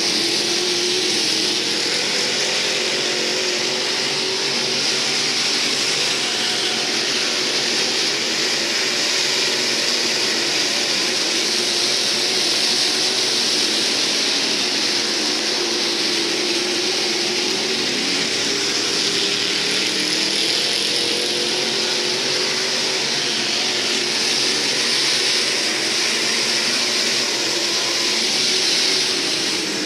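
IMCA SportMod race cars with V8 engines running at speed on track. It is a steady, loud engine drone whose pitch rises and falls slightly as the cars go round.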